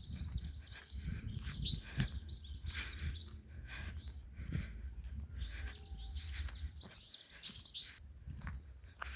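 Wild birds chirping and singing, many short quick calls overlapping, over a steady low rumble.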